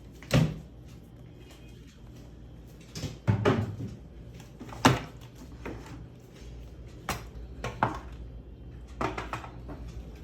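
Washing machine running with a steady low hum, broken by loud, irregular knocks and clatters, the noise fault during the spin cycle.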